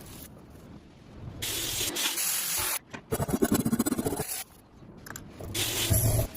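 Workshop sounds of restoring an old metal bread cutter, cut together: short bursts of hissing spray and a fast, rhythmic scrubbing or scraping on the metal about halfway through.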